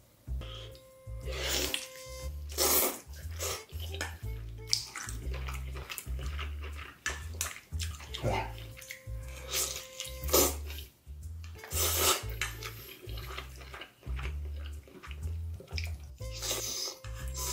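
Close-up wet eating sounds of a mukbang eater slurping and biting into saucy chicken with melted cheese, in sharp bursts every second or two. Background music with a steady low beat plays throughout.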